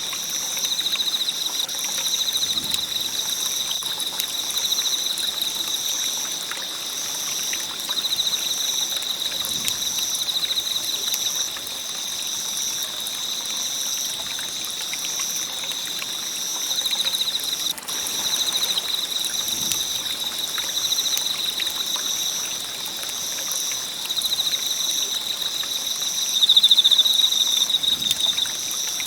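Night insects trilling steadily, with a second insect call pulsing on and off in an even rhythm, over the faint crackle and hiss of a wood campfire.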